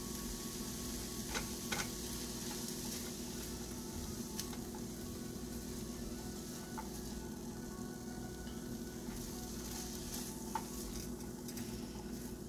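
Diced onions and bell peppers sizzling in a nonstick frying pan while being stirred with a silicone spatula, with a few light taps of the spatula against the pan.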